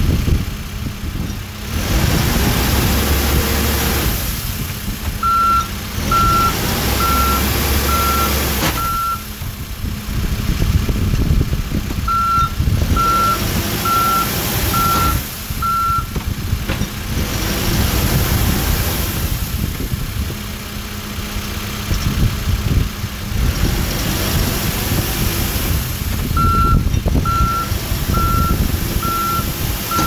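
2013 Case 580N backhoe loader's diesel engine running as the machine is driven, with its back-up alarm sounding in three runs of about five evenly spaced beeps: about five seconds in, about twelve seconds in, and near the end.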